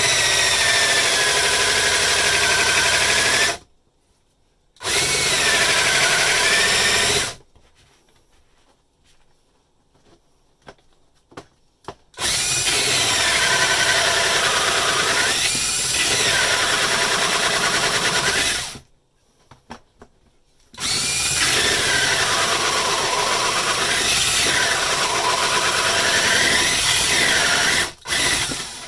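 Cordless drill driving a Panasonic universal hole saw into wood, running in four stretches of about three to seven seconds with its pitch wavering under load. Between the stretches come short pauses, the longest one in the middle with a few light clicks.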